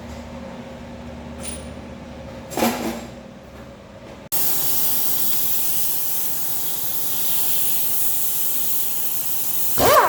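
A metallic knock, then a loud, steady hiss of escaping air or gas that starts abruptly about four seconds in.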